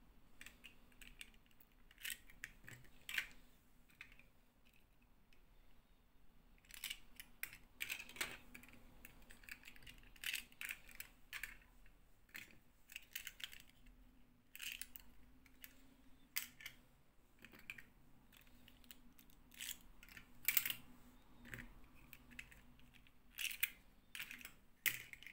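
Small hard plastic dolls and snap-on plastic doll dresses being handled, in irregular light clicks and clacks as the pieces are picked up, knocked together and set down, with a faint steady hum underneath.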